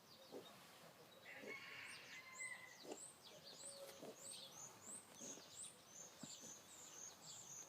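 Faint, high bird chirps repeating about twice a second, starting about two seconds in, with a few soft knocks underneath.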